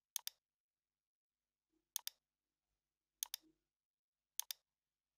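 Computer mouse button clicking four times, each a sharp pair of clicks, spaced a second or two apart.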